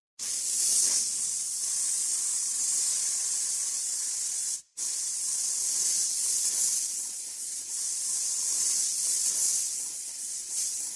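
Steady hiss of compressed air spraying from a nozzle, broken by a brief cut just under five seconds in.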